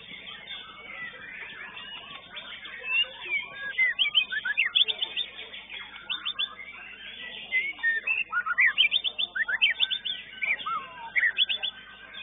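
Caged songbird singing in two spells of rapid, loud whistles and chirps that sweep up and down in pitch. The first spell starts about three seconds in, and the second comes after a short pause, about seven and a half seconds in.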